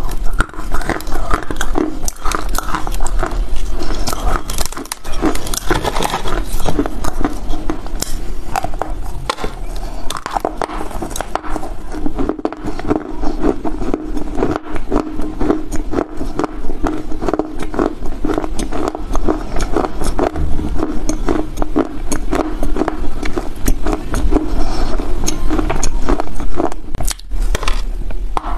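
Dry chunks of Chinese loess clay being bitten and chewed close to a clip-on microphone: dense, rapid crunching and crackling that goes on without a break.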